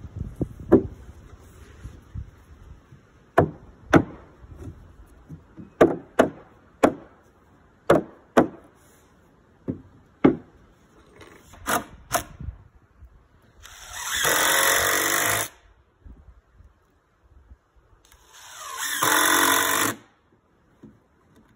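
Sharp wooden knocks, about a dozen, as a wooden block is struck to drive tongue-and-groove floorboards tight. Then a cordless drill runs twice, each time for under two seconds, driving screws into the boards.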